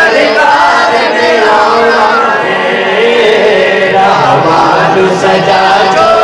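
A group of men chanting together in a sung, drawn-out devotional chant, several voices overlapping and holding long notes.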